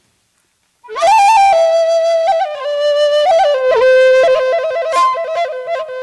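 Native American flute starting a slow melody about a second in: held notes that step gradually lower, broken by quick grace-note flicks.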